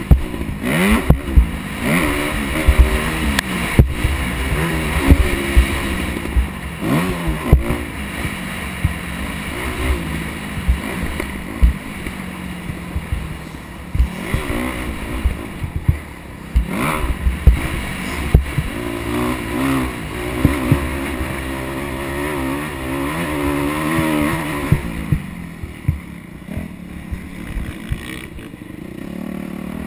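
Motocross dirt bike engine revving up and falling back again and again as it is ridden around a dirt track, with knocks and wind buffeting on the helmet-mounted microphone. The engine eases off near the end.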